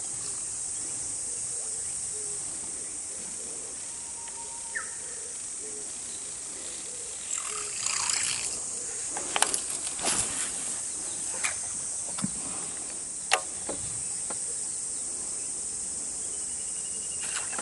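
Insects droning steadily in a high-pitched chorus. From about seven seconds in, a run of short, sharp clicks and knocks joins them.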